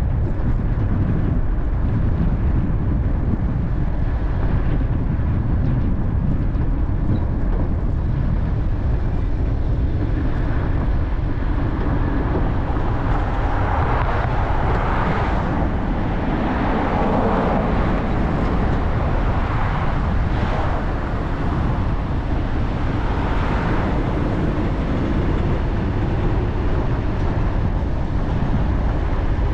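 Car driving: steady low rumble of tyres and engine, with a stretch of louder rushing noise in the middle that swells and fades a few times.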